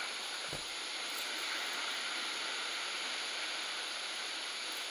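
Sea surf washing and breaking against the rocks, a steady hiss of water.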